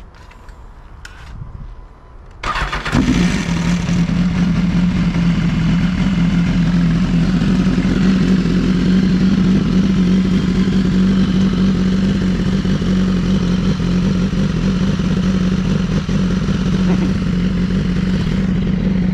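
A motor starts up about two and a half seconds in, then runs steadily at one unchanging pitch.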